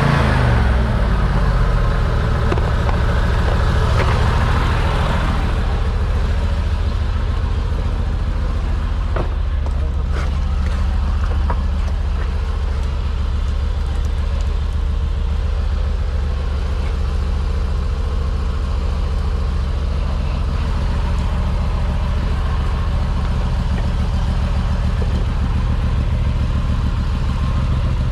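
Engine of a high-pressure sewer jetter running with a steady low hum. It slows in the first second, then settles to an even speed.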